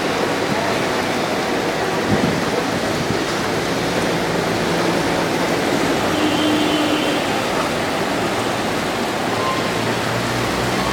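Heavy rain pouring down on a wet street, a steady dense hiss.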